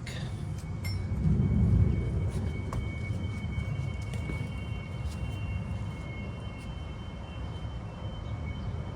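Low steady engine rumble from a distant motor vehicle or plane, swelling about a second and a half in and easing off, with a faint high whine above it.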